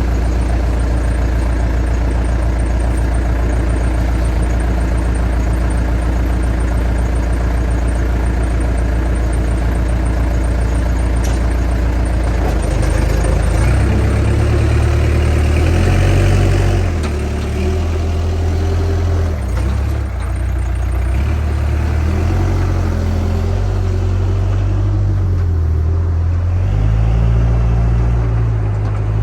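Diesel engine of a JCB backhoe loader running steadily, its note shifting up and down repeatedly from about halfway through.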